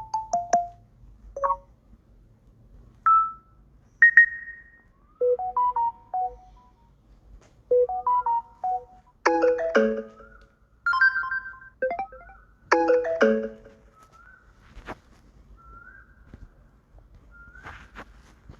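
Samsung Galaxy Note 10 notification tones played one after another: short chimes and little jingles of a few notes each, separated by brief pauses, ending with a run of quieter rising chirps.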